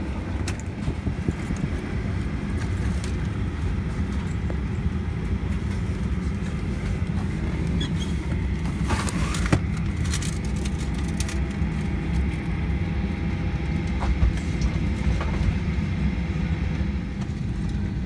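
Steady low rumble inside the cabin of a Boeing 737-800 parked at the gate, with scattered knocks and clatter of boarding and a brief rustling burst about nine seconds in.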